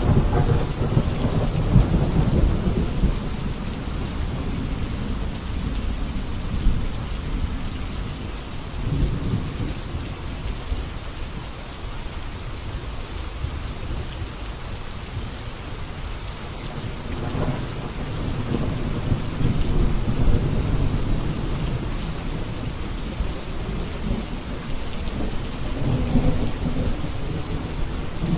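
Steady rain with rolling thunder, the low rumbles swelling and fading several times: near the start, about nine seconds in, around seventeen to twenty-one seconds, and near the end.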